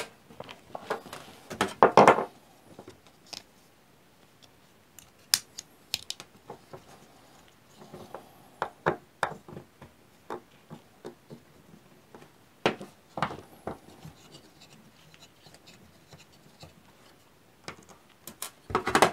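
Scattered small clicks, scrapes and knocks of hands working a replacement electrical plug, its wires and a multi-tool on a metal tabletop, with a few louder bursts of handling about two seconds in, around the middle and near the end.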